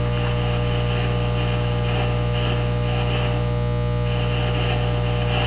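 Steady electrical mains hum and buzz with a low hiss, unchanging throughout.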